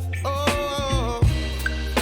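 Background pop song: a singer over a steady bass line and drum beat.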